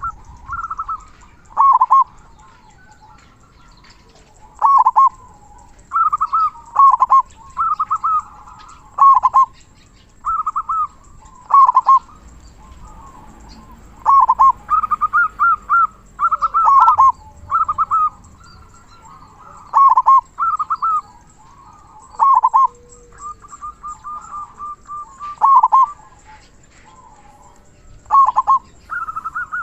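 Zebra dove (perkutut) cooing: over and over, a run of quick stuttering notes ending in a loud, deep 'kung' coo, a phrase every second or two with a few short pauses.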